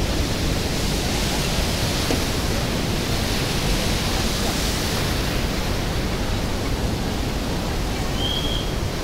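Mountain river rushing over boulders in white-water rapids: a loud, steady roar of running water. A short high tone sounds once near the end.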